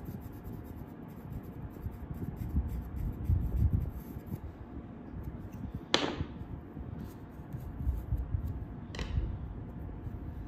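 A pointed metal carving tool scratching firm, half-dried clay in short strokes for the first four seconds or so. After that come soft handling bumps and two short sharp clicks, about six and nine seconds in, as the tools are handled.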